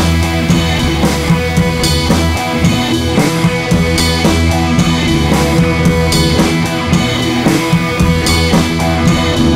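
Rock music with drum kit and guitar, playing steadily throughout.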